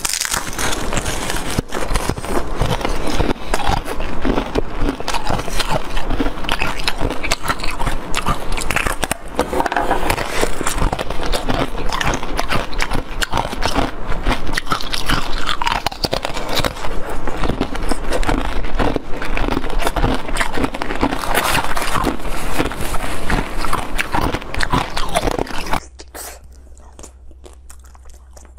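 Close-miked biting and chewing of a crunchy blue edible bowl, a dense run of crackling crunches. About 26 seconds in it cuts off suddenly to a much quieter low hum.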